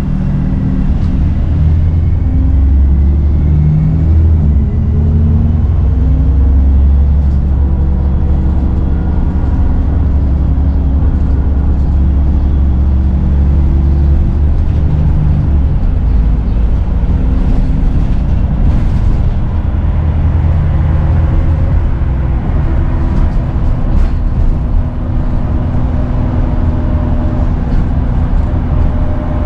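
Dennis Trident 2 / Enviro 400 double-decker bus's diesel engine pulling under way, its pitch rising and falling as the engine speed changes. A slight turbo whistle runs above the engine.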